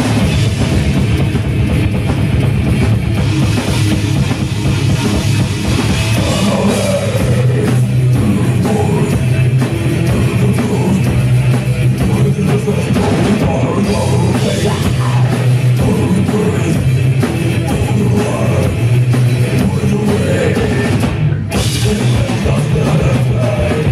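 Metal band playing live: distorted electric guitars and bass over a drum kit, loud and dense, heard from the audience. The band breaks off for a moment near the end and comes back in.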